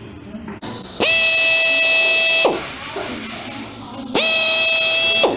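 Drill boring a hole through a new king pin bushing held in a vise, which the new bushings come without. It runs twice, a second and a half and then about a second, each run spinning up to a steady whine and winding down at the end.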